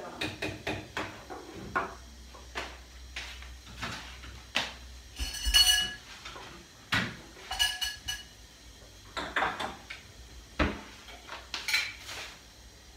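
Kitchen clatter of pots, dishes and utensils: a spoon knocking in a cooking pot, then a string of clinks and knocks. Two clinks ring on briefly, the loudest about five and a half seconds in and another about two seconds later.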